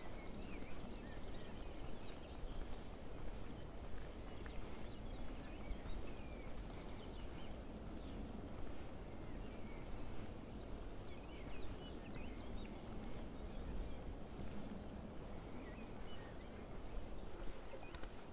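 Small birds chirping and twittering, many short calls scattered throughout, over a steady low outdoor background noise.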